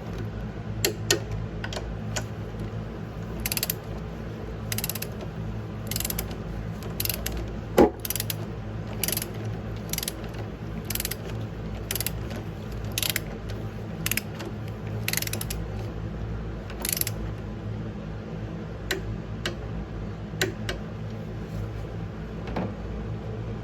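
Ratchet wrench clicking in even strokes about once a second, then a few more clicks after a short pause, over a steady low hum.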